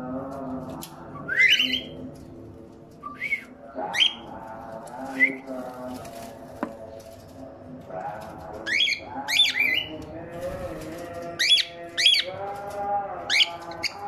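Male cockatiel giving a series of short, sharply rising whistled calls, about nine in all, several of them near the end. A steady low hum with overtones runs underneath.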